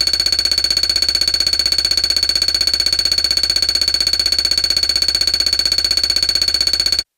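Sci-fi data transmission sound effect: a continuous, high electronic beeping tone pulsing rapidly and evenly, which cuts off suddenly about seven seconds in.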